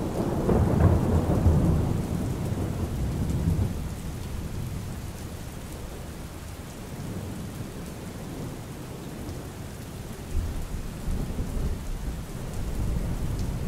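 Steady rain with rolling thunder: a long low rumble in the first few seconds that fades away, and another rumble building from about ten seconds in.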